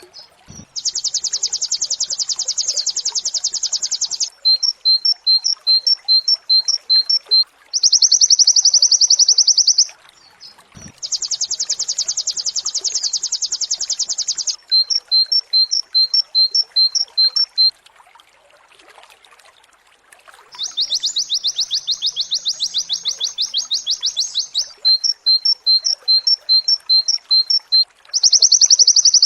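White-eye (pleci) singing: long, fast rapid-fire trills of two to four seconds, the 'nembak' song, alternating with runs of short repeated chirps at about two or three a second. The pattern repeats over and over, as in a looped tutor recording for training cage birds.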